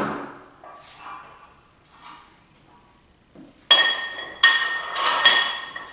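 Iron weight plates being loaded onto a barbell's sleeves: faint handling first, then about halfway through three loud metallic clanks, each leaving a high ringing tone.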